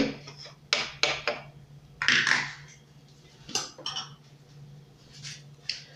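Metal spoon clinking and tapping against a blender jug several times, with a longer scraping sound about two seconds in.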